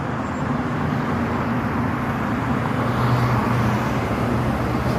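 Steady road traffic noise with a low engine hum running underneath.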